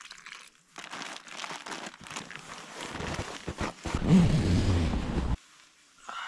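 Plastic zip-top bag crinkling and rustling as it is handled while bread flour and water are mixed in it, growing louder and deeper about four seconds in and cutting off suddenly a little after five seconds.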